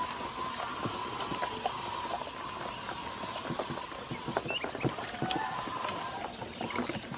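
Ducklings dabbling and paddling in a shallow plastic basin of water, with a busy patter of small clicks and splashes as their bills work the water and the feed dish, and a couple of brief high peeps.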